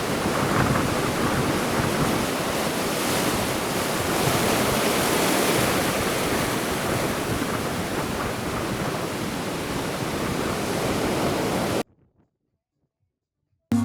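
Sea waves washing onto the shore, with wind buffeting the microphone, a steady wash of noise. It cuts off suddenly about twelve seconds in, leaving silence.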